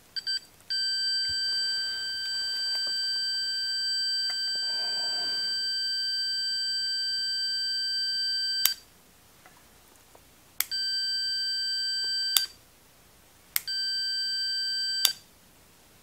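Digital multimeter's continuity beeper giving a steady high-pitched beep through the repaired Philco power switch, showing the switch now makes contact. The beep holds for about eight seconds, then cuts off and comes back twice as the switch is clicked off and on, each change marked by a sharp click.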